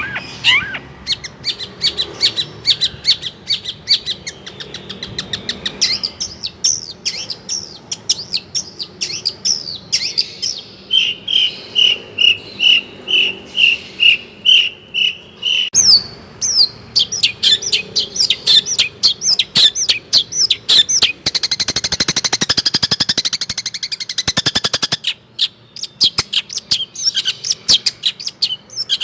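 Long-tailed shrike (cendet) singing continuously: a fast, varied string of chirps and sweeping notes, with a run of evenly spaced clear notes in the middle and a dense, harsh rattling passage later on.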